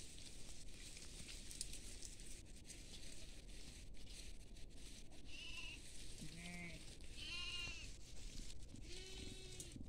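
Bleating from a grazing flock of sheep and goats: four calls in the second half, a short high one first, then two more in quick succession, and a longer, lower bleat near the end.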